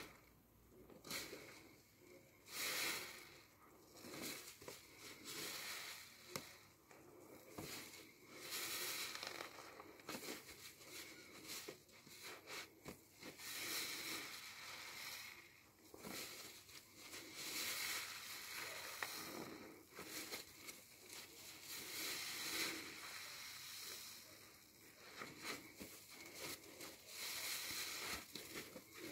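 A new car sponge squeezed again and again in thick soapy foam: wet squelching and crackling of the suds, swelling with each squeeze every second or two.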